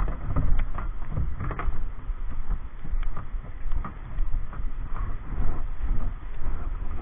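Kayaks on moving river water: a steady rush of water with irregular soft knocks and splashes.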